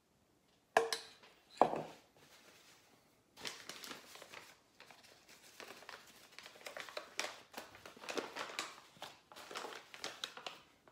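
Two sharp clinks with a short ring near the start, like a metal spoon set down. Then a small paper bag crinkles and rustles for several seconds as it is handled and opened.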